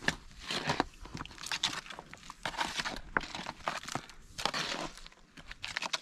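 A shovel scraping and scooping loose soil and stones, a run of gritty scrapes and crunches about once a second with small knocks of stone among them.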